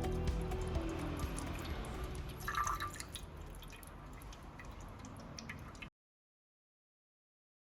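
Automatic transmission fluid dripping and trickling from the car's transmission into a drain pan, with many small drip ticks. It cuts off abruptly about six seconds in.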